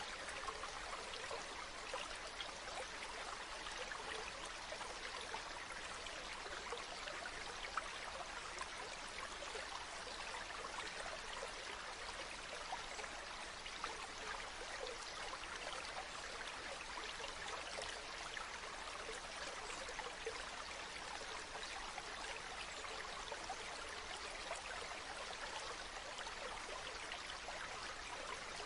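Mountain stream running over rocks, a steady rush of water with fine bubbling and trickling.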